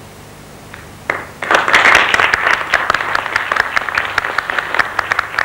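Audience applauding: clapping starts about a second in and quickly swells into full applause.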